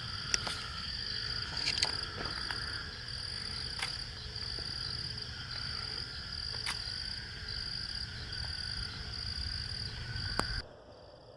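Chorus of frogs calling, a steady high-pitched pulsing trill, over a low rumble with a few sharp clicks; it cuts off suddenly near the end.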